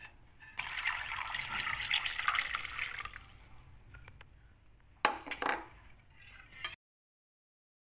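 Milk poured from a cup into a stainless steel bowl of whisked eggs and melted butter, a splashing pour that tapers off after a few seconds. A few sharp knocks follow about five seconds in, then the sound cuts out completely near the end.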